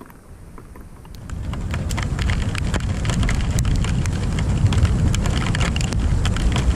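Thunder rumbling, swelling in about a second in and rolling on steadily, over rain with scattered sharp raindrop ticks.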